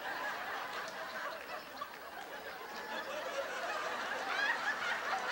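Studio audience laughing, the laughter swelling louder in the second half.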